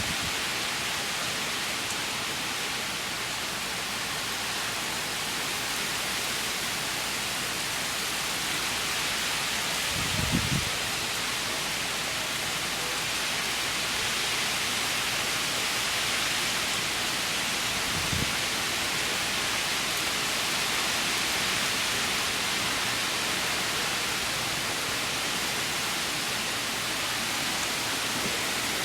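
Hurricane rain and wind: a steady hiss of heavy rain. Two brief low bumps break in, about ten seconds in and again near eighteen seconds.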